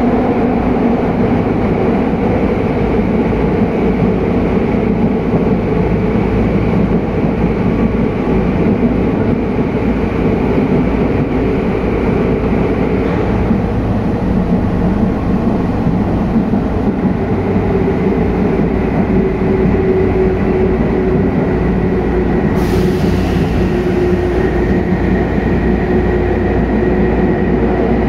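Tokyu 8500 series commuter train running in a subway tunnel, heard from inside the car: a steady rumble of wheels and Hitachi traction motors. A faint motor whine slowly falls in pitch in the second half, and a brief hiss comes about two-thirds of the way through.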